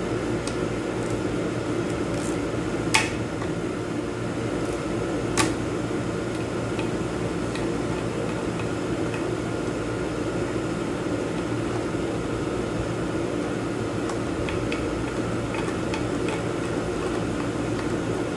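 Steady mechanical hum with no speech over it. Two sharp metallic clinks come about three and five and a half seconds in, with lighter taps after them, as parts are handled inside an automatic transmission case.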